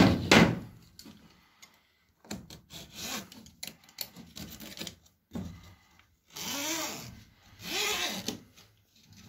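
Utility knife blade drawn along the edge of a window screen frame, slicing off the surplus insect-screen mesh. Scattered light scraping and a click, then two longer scraping cutting strokes, about a second each, near the end.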